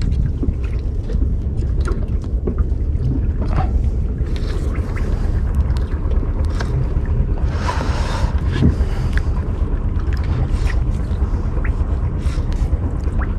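Wind buffeting the microphone, heard as a steady low rumble, over open-sea ambience. Scattered small clicks and knocks run through it, and a brief hiss swells about eight seconds in.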